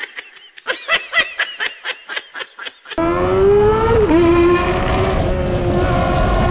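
For about the first three seconds, the engine is cut out and an edited-in sound clip plays: quick repeated pulses, about five a second, with swooping pitch. About three seconds in, the Kawasaki sport motorcycle's loud aftermarket exhaust returns suddenly, running steadily, with a brief dip and recovery in engine pitch a second later.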